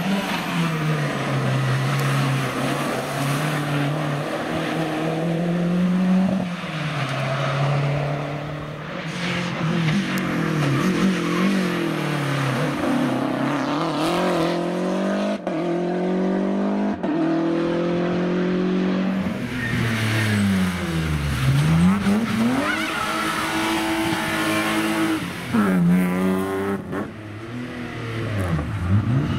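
Historic rally cars, among them a Lancia Delta, passing one after another at stage speed. Their engines rev up and down through gear changes and braking, with the note sweeping down and back up several times.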